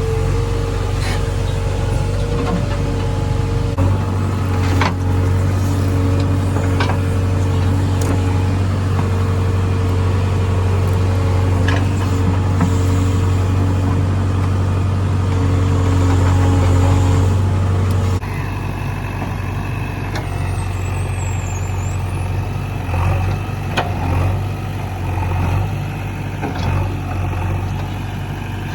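JCB 3DX backhoe loader's diesel engine working under hydraulic load, a steady low drone with a whine over it and scattered sharp knocks. About 18 s in the load cuts off abruptly and the engine settles to a lower, idling note.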